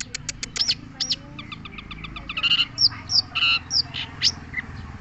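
Long-tailed shrike (cendet) singing a fast, varied song of sharp high chips, quick whistled sweeps and a few harsher notes, over a low background rumble.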